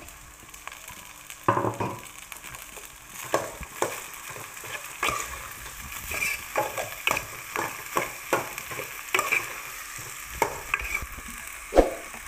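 A metal spatula scrapes and stirs rice around an aluminium pot in a dozen or more strokes, roughly one to two a second, with the loudest scrape just before the end. Under it is a steady sizzle of the rice frying in ghee.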